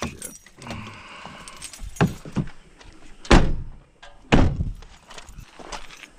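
Knocks and thuds at a pickup truck: the loudest, a door shutting with a heavy thunk, comes a little over three seconds in, with smaller knocks before it and another thud about a second after.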